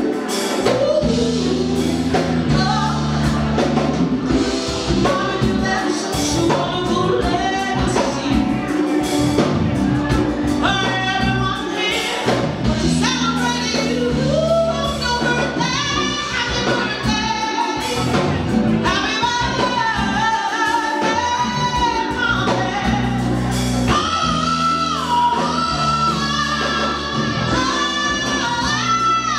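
A woman singing live with a band of drums, bass guitar and keyboards, her voice running through bending phrases and holding long wavering notes in the second half.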